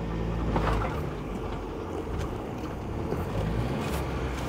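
Ford Bronco's 2.3-litre turbocharged four-cylinder engine running at a low, steady drone in four-wheel-drive low as the vehicle crawls over rocks and loose dirt, heard from inside the cabin. A few faint clicks and knocks come through from the body and suspension.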